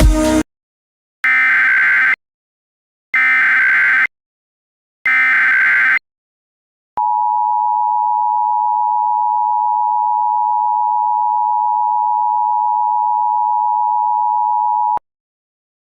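Emergency Alert System header: three one-second bursts of SAME data tones with short gaps between them, announcing the alert. After a brief pause comes the EAS attention signal, a steady two-tone beep held for about eight seconds that cuts off sharply.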